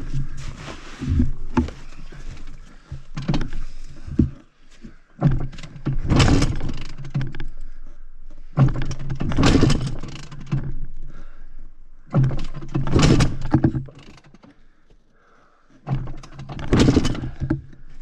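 Honda CR500 two-stroke dirt bike engine revved in short bursts, five or six times, each a second or two long, with a quieter lull before the last one.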